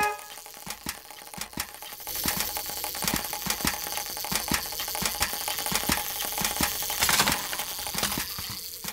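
Cartoon sound effects: a run of irregular dry clicks and taps, joined about two seconds in by a steady high hiss that swells briefly near the end.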